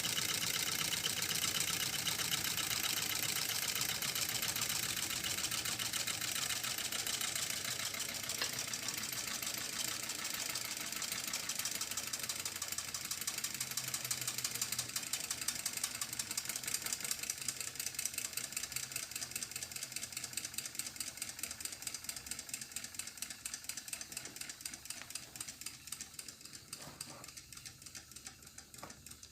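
Homemade can-and-PVC Stirling engine running with a fast, even mechanical clatter that gradually slows and fades, the beats growing further apart near the end.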